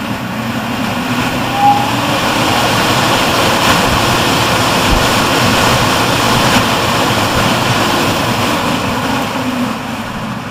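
Rosenberg GKHM 280 EC fan, 280 mm, spinning up on its soft start and then running at full speed. Its steady rush of air builds over the first couple of seconds and then holds.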